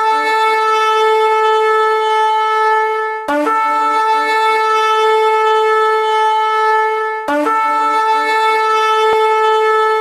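Shofar sounding long, steady blasts on one note, each about four seconds long and each opening with a short jump up in pitch; new blasts begin about three and seven seconds in.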